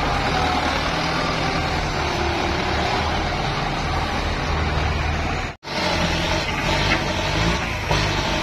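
Kubota M8540 tractor's four-cylinder diesel engine running steadily as it works a front dozer blade through soil. The sound cuts out for an instant about five and a half seconds in.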